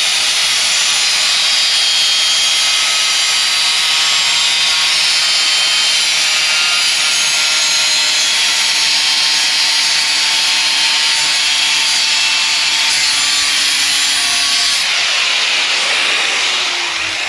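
Electric angle grinder grinding sheet steel, running steadily under load and throwing sparks. Near the end it is lifted off the metal and its disc begins to wind down with a falling whine.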